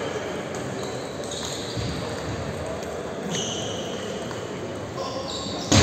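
Table tennis balls clicking as they bounce on tables and bats, over the steady din of a busy sports hall. A sudden louder rise in noise comes right at the end.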